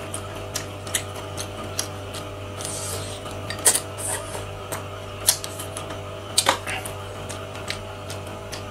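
Close-miked mukbang eating: irregular sharp clicks, smacks and crunches of chewing seafood, with chopsticks tapping, over a steady low hum.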